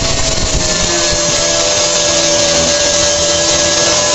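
Handheld angle grinder running under load, its abrasive disc grinding down a weld on a steel grill frame. A steady motor whine over the rasp of disc on metal.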